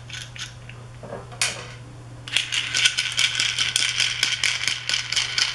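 Small hardware from a screen-printing press's off-contact assembly (knobs, nuts and a threaded bolt) rattling and clicking as it is unscrewed and taken off by hand. There is light rapid ticking at first, a single knock about a second and a half in, then a louder, dense rattle of quick clicks from a little past two seconds. A steady low hum lies underneath.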